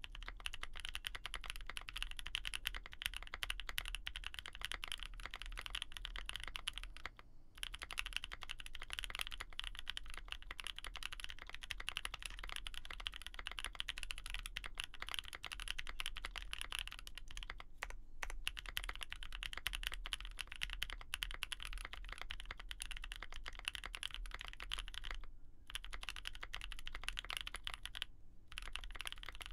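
Continuous fast typing on a Mode65 aluminium 65% mechanical keyboard with lubed Gazzew Boba U4T tactile switches on a POM plate and GMK keycaps, a dense stream of key clacks broken by a few short pauses.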